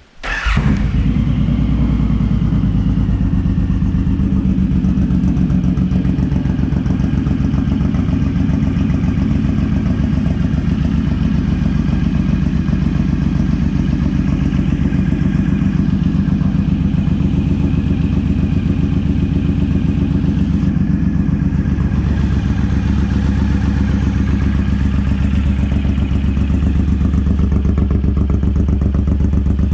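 Suzuki Boulevard M109R's 1,783 cc V-twin engine starting up and then idling steadily.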